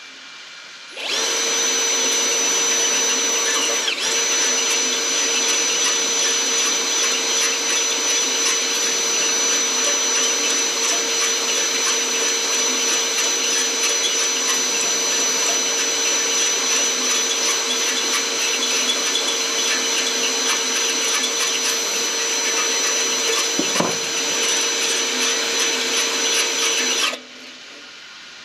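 Electric drill spinning a hone inside a bushing bore: a steady motor whine over a grinding scrape. It starts about a second in, falters for a moment a few seconds later, and stops just before the end.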